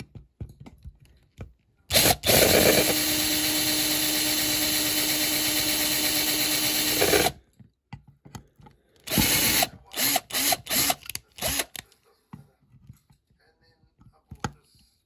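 Small electric drill running steadily for about five seconds, then in several short bursts. It is drilling out the fixings of a diecast model van to take it apart.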